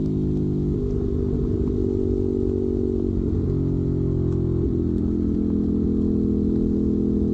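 Ducati Monster 821's L-twin engine running through a Termignoni exhaust, holding a steady note with small shifts in pitch about a second in and again near five seconds.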